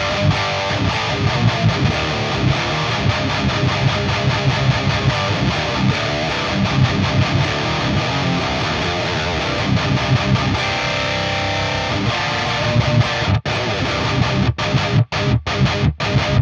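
High-gain distorted electric guitar through the Peavey Invective amplifier's lead channel, playing a continuous riff. In the last few seconds it breaks into tight staccato chugs, the sound cutting off sharply between each one as the amp's built-in noise gate closes.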